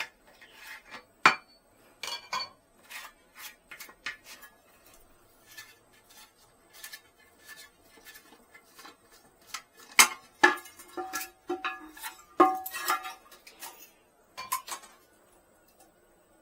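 Irregular clinks and knocks of a tool and hard parts against a toilet tank as the old flush valve is taken off, with a cluster of louder, briefly ringing clinks about ten to thirteen seconds in.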